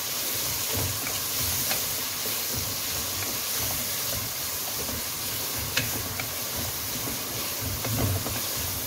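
Chopped onions sizzling steadily in hot oil in a karahi, fried only until pink and soft rather than browned, with a few light clicks scattered through.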